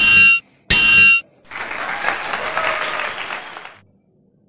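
Two identical metallic clang sound effects, about a second apart, for the clashing cardboard hammer and shield. Each rings for about half a second. Then about two seconds of applause that stops abruptly.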